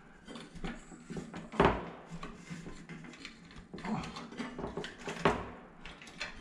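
Scattered clicks, knocks and light clatter of hands working the wiring and parts of a ceiling light fixture, with two sharper knocks about a second and a half in and about five seconds in.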